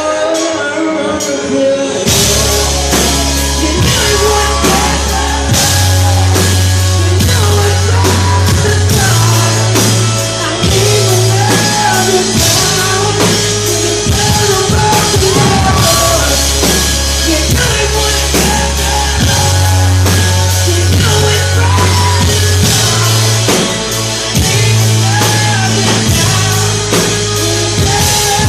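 Live rock band playing loud, with singing over guitar, bass and drum kit; the full band with drums comes in about two seconds in.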